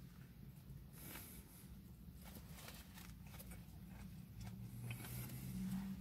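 Faint chewing of a burger mouthful with scattered small clicks of the bun being handled, over a low steady hum.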